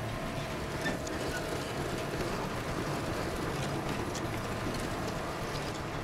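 Heavy rotator tow trucks' diesel engines running under load in a heavy pull to lift a loaded semi-trailer out of a ditch: a steady, dense rumble with a few faint metallic clicks.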